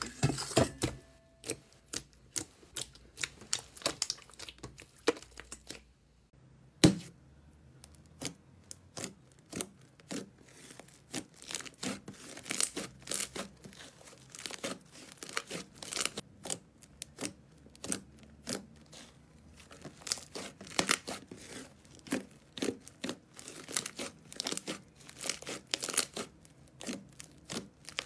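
Hands stretching, pulling and pressing slime, giving a steady run of small sticky crackles and pops as it tears and squishes. The crackling drops out briefly about six seconds in, then a sharp click, and it picks up again.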